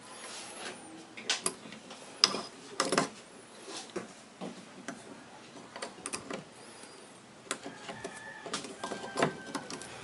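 Small clicks and scrapes of stranded wires being pushed into a convenience outlet's screw terminals and the terminals being worked, coming at irregular intervals, with a faint thin squeak near the end.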